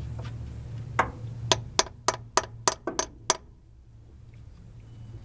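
Hammer tapping a seal-puller screw into the shift shaft seal of a TH350 automatic transmission: about eight sharp taps, roughly three a second, then stops.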